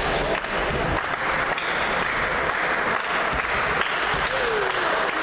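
Spectators applauding in a sports hall, a steady patter of clapping between rallies of a volleyball match.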